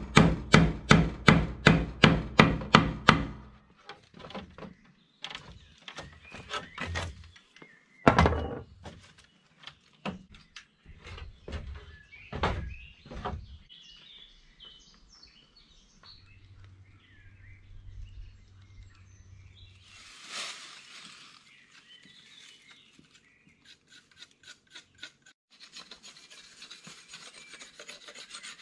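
Hand tool working wood. It opens with a quick, even run of about a dozen strokes, three to four a second. Scattered single strokes and scrapes follow, then a faster run of fainter scraping strokes near the end.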